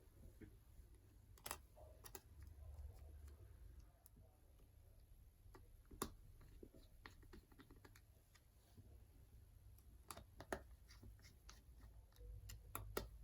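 Faint, scattered light clicks and taps of small tools and tablet parts being handled, a few sharper ticks standing out now and then, with a low hum underneath.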